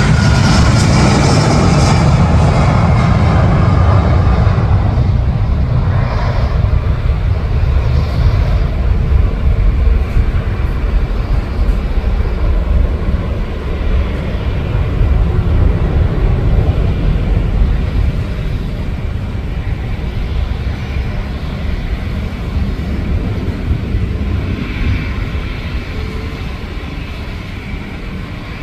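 Airbus A330 jet engines at takeoff thrust: a loud, deep, steady rumble with a hiss that thins out after the first few seconds, the whole sound slowly fading as the airliner climbs away.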